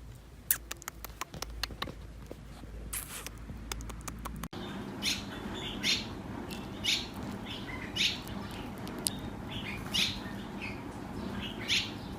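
Scattered sharp clicks and taps, then after an abrupt cut a bird chirping in short bright calls about once a second over a steady low hum.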